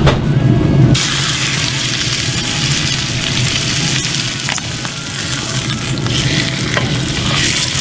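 Ribeye steak laid onto a very hot, oiled cast iron griddle pan, sizzling from about a second in as the meat hits the metal and then sizzling steadily: the final searing step of a reverse sear.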